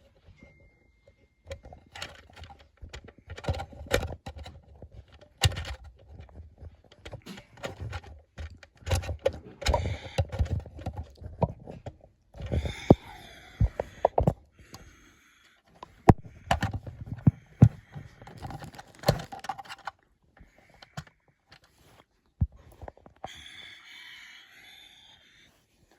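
Irregular handling noises: sharp clicks, knocks and low thuds with stretches of rustling, as an object is handled and moved about. A short steady beep sounds near the start.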